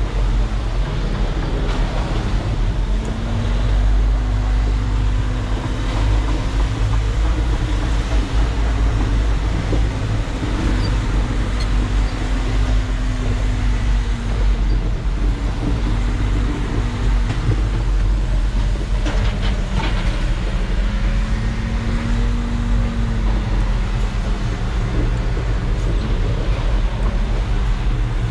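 Concrete mixer truck's diesel engine running as the truck moves slowly, a steady low rumble whose pitch rises and falls gently a few times.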